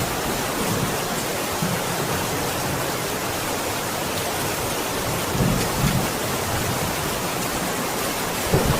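Steady rain falling, with low rumbles of thunder about halfway through and again near the end.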